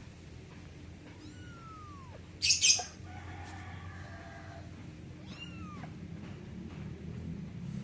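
Kitten meowing: two thin, high meows that fall in pitch, one about a second in and one about five seconds in. Between them come two quick, loud, noisy bursts and then a softer, lower call.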